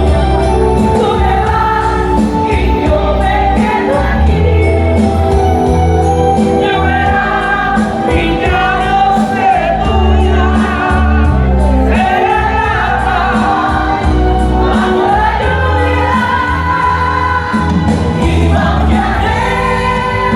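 Music: a vocalist singing over band accompaniment with a strong bass line, the voice's lines entering and pausing in phrases.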